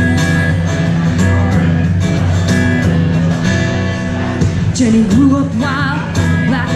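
Live music: a guitar-led intro over a steady low bass, with a singer coming in about two-thirds of the way through.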